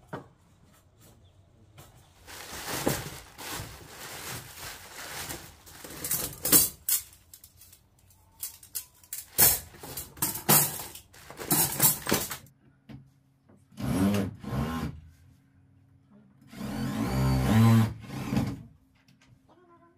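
Woodworking on timber: about ten seconds of irregular rasping strokes and knocks on wood, then a power tool running twice near the end, once for about a second and once for about two seconds.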